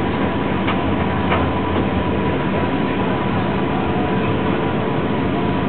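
Steady rumble and hum inside an Airbus A380's passenger cabin as it rolls along the ground after landing, with a few faint knocks from the wheels.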